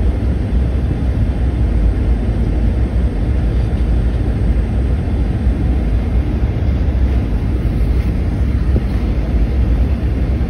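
Steady cabin noise of a Delta jet airliner on final approach: a low rumble with a rush of air.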